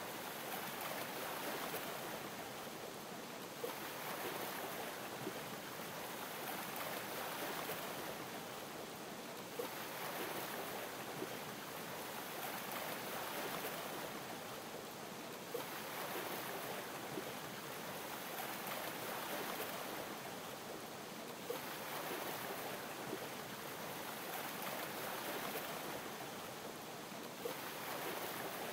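Ocean waves lapping, the wash of water swelling and easing about every six seconds, with a soft tick once each cycle and faint small pops scattered through it.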